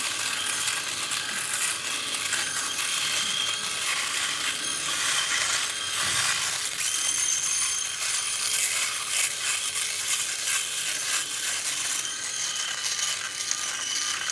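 Philips Click & Style rotary electric shaver running steadily, its rotary heads cutting stubble through shaving foam as it is moved in circles over the face.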